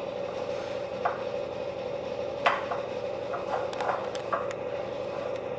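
Stirring a stiff brown sugar and margarine mixture in a ceramic bowl with a silicone spatula: a few scattered soft knocks and scrapes of the spatula against the bowl, the loudest about two and a half seconds in and a cluster near the end, over a steady low hum.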